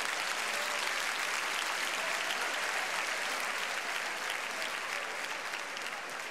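Large audience applauding: dense, steady clapping that slowly dies down over the last couple of seconds.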